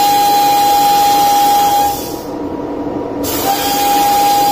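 Sandblasting gun in a blast cabinet hissing steadily with a high whistle as it blasts motorcycle clutch parts. About two seconds in the air is cut off for roughly a second and a half, leaving only a lower hum, then the blast starts again.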